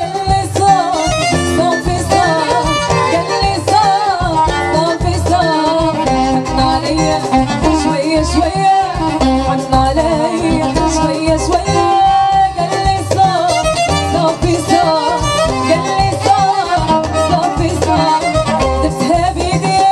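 Live Moroccan chaabi band music: a lead melody that bends in pitch plays over keyboard and electric guitar, with a steady driving beat.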